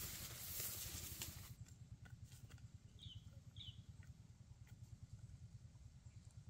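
A hen pecking and scratching in dry leaves and grass: faint scattered light clicks over a low rumble, with two short high falling chirps about three seconds in. A louder steady hiss opens the sound and cuts off abruptly about a second and a half in.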